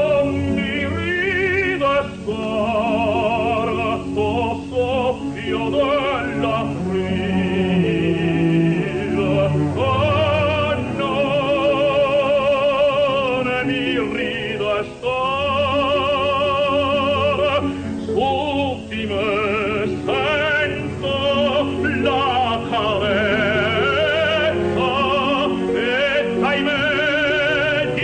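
Operatic singing with a pronounced vibrato over instrumental accompaniment, as a background music track.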